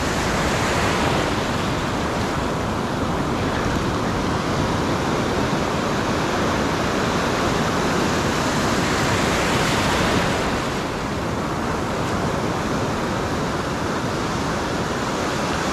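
Steady rush of ocean surf and wind, swelling slightly about ten seconds in.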